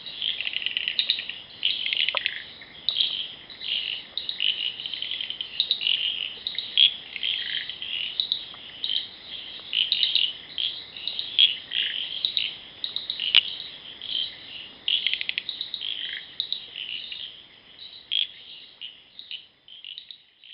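Night chorus of many chirping insects, a dense overlap of short chirps and fast trills that thins out near the end and stops.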